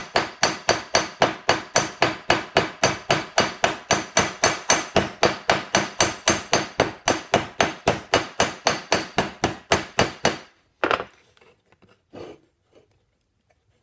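Ball side of a ball peen hammer rapidly tapping a copper rivet through a steel strip, the rivet head backed on an anvil horn: about four ringing metal strikes a second, peening the rivet down tight. The hammering stops about three-quarters of the way through, and a couple of faint knocks follow.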